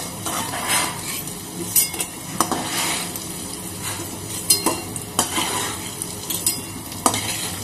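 Paneer cubes sizzling in hot mustard oil in a metal wok, with a metal spatula scraping and knocking against the pan several times as the fried cubes are lifted out into a steel bowl.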